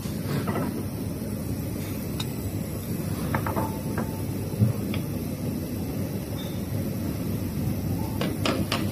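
Restaurant room noise: a steady low rumble with a few scattered light clicks and knocks, one sharper knock about halfway through.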